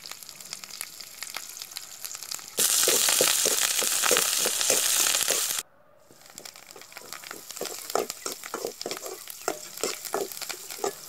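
Sliced shallots, green chillies and curry leaves frying in hot oil in an aluminium pan, crackling. A loud sizzle starts about two and a half seconds in and cuts off suddenly some three seconds later. Then a metal spoon stirs and scrapes the pan in a run of quick strokes.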